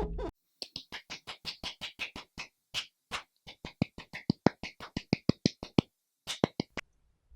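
Mouth-made percussive sound effects: a quick run of short clicks and pops, about five or six a second, with a short pause near the end before two more.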